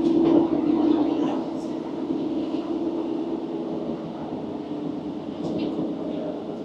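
Diesel multiple unit heard from inside the carriage while under way: a steady engine and transmission hum over the rumble of the wheels on the track, easing off slightly after a couple of seconds.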